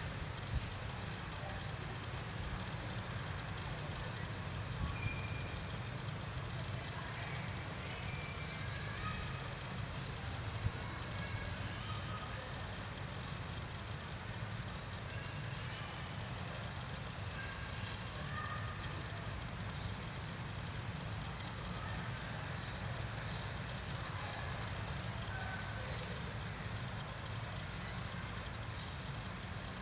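Outdoor ambience: short, high-pitched rising chirps repeat roughly once a second at uneven intervals, over a steady low rumble.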